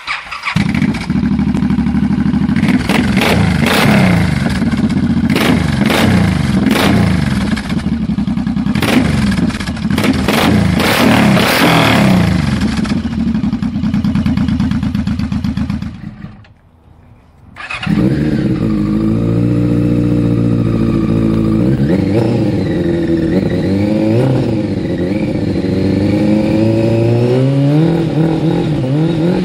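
Suzuki Intruder 1800's V-twin starts on a loud aftermarket exhaust and is revved hard with sharp crackles, then settles to an idle. After a cut, a Yamaha R6's inline-four runs on an aftermarket silencer and is blipped up and down, rising near the end.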